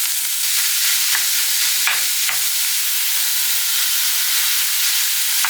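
Ground beef and vegetables sizzling in a pot, a loud steady hiss, with a few light scrapes of stirring.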